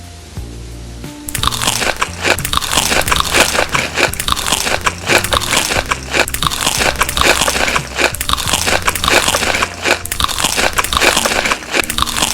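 Loud, continuous crunching and chewing of crisp food close to the microphone, starting about a second in, over background music.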